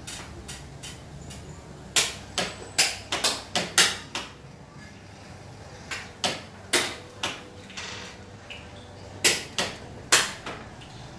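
A series of sharp knocks in three irregular clusters of several quick strikes each, over faint steady background noise.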